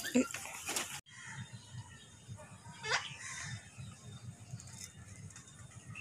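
Pigeons cooing in a low, pulsing murmur, with a sharp high-to-low call from another bird about three seconds in and a few similar calls in the first second.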